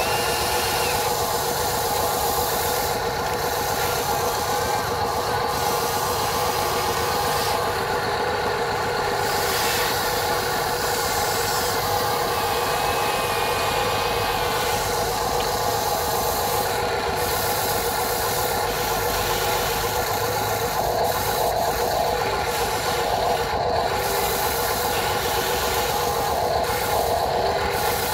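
Huina 580 remote-control excavator's electric motors and gearboxes whining steadily as it swings and moves its boom and bucket.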